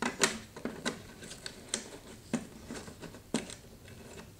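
Plastic wiring connectors being pressed home on a refrigerator control board: about five sharp clicks and light knocks scattered through, with faint handling noise of a hand on the board between them.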